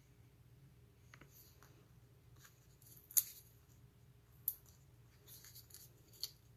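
Faint rustling and light clicks of cardstock and paper pieces being handled and pressed on a desk, with a sharp snap about three seconds in and another about a second later.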